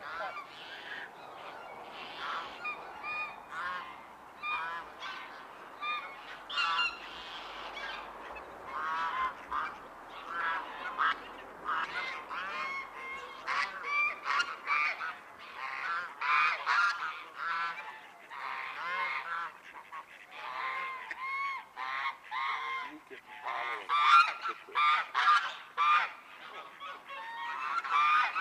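A flock of geese honking, many short calls overlapping one after another, busiest and loudest in the last few seconds.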